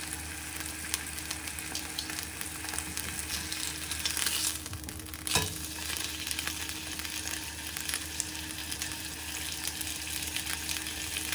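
A steak sizzling in a cast-iron skillet, with a dense crackle of small pops from the hot fat and one sharper, louder crack about five seconds in. A faint steady hum runs underneath.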